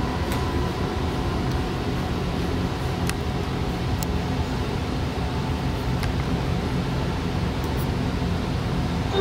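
Steady mechanical hum and hiss inside an Alstom Citadis light rail car standing still, with a few faint clicks.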